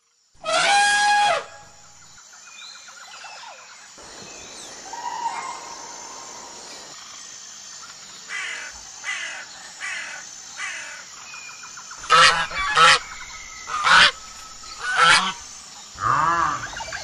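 A string of different animal calls, one after another: a loud pitched call about half a second in, a run of evenly repeated calls about a third of the way through, four loud sharp calls past the middle, and a series of rising-and-falling calls near the end.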